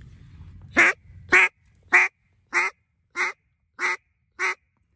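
Hen mallard quacks blown on a handheld duck call: seven short, evenly spaced quacks, the later ones fainter than the first three. It is a descending-style call hailing a small flock of ducks that has just flown past.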